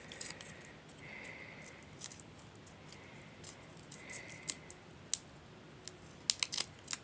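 Fingers picking at and peeling the end of a roll of paper stickers: small crackles and scattered clicks of paper being handled, with a quick run of clicks near the end.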